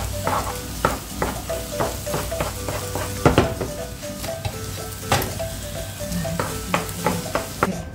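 Wooden spatula tapping and scraping against a nonstick frying pan as scrambled eggs are stirred and broken up, with a light sizzle underneath. The taps come irregularly, about two a second, the loudest a little past three seconds in.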